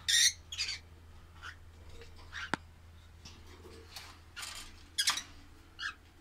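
Caged pet birds giving short, sharp squawking calls, about six scattered calls with the loudest at the start and about five seconds in. A single sharp click comes about two and a half seconds in.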